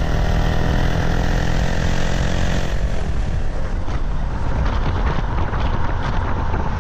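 Jeep Trackhawk's supercharged 6.2-litre V8 heard from inside the cabin at speed on track, its note sinking gently. About three seconds in, the steady engine tone breaks up into a rough low rumble mixed with road and tyre noise.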